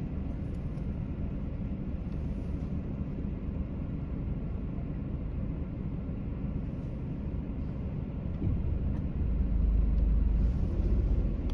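Low, steady vehicle rumble with no crossing bell, growing louder about nine seconds in.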